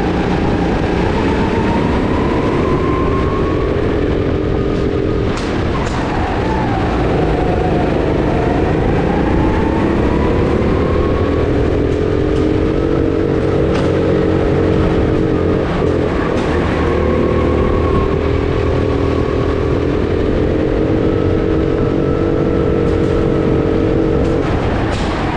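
Go-kart engine heard from on board at racing speed, its note rising and falling with the throttle through the corners. A few brief knocks come through along the way.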